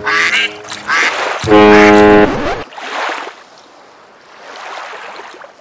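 A ship's horn sounding one loud, low blast about a second and a half in, lasting about a second, with high squeaky chirps over it. After it, a soft hiss of noise swells and fades.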